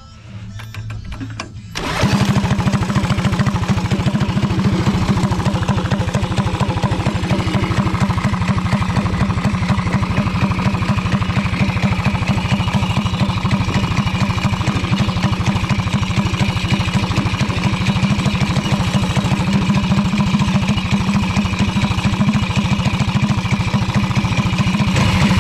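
Small go-kart engine, apparently a Briggs & Stratton, catching about two seconds in and then running loud and steady at an even speed.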